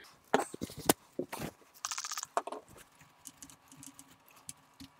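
Light clicks and taps from hands and a cloth on a cassette deck's tape mechanism, with a short scratchy rubbing about two seconds in, as goopy residue is wiped off it.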